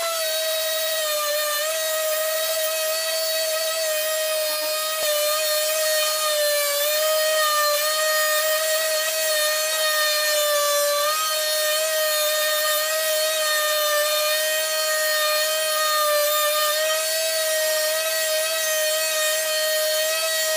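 Parkside PMFS 200 C3 multi-function sander running in orbital mode with a 240-grit sheet, sanding a wooden board, played back at four times speed. It makes a steady, high motor whine that wavers slightly in pitch as the sander is pushed across the wood.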